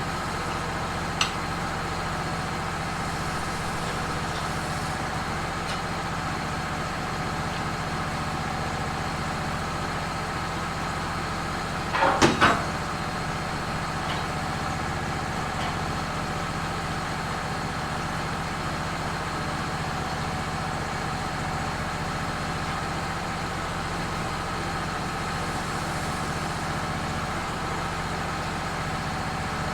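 Wood-Mizer LT15 sawmill running steadily with an even mechanical hum. There is a single click about a second in and a short clatter near the middle.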